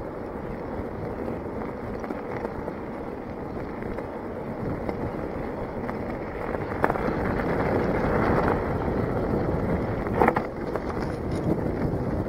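Mountain bike rolling downhill on a gravel and dirt trail: steady tyre noise and wind rush on the microphone, getting louder in the second half, with two sharp knocks from the bike over bumps.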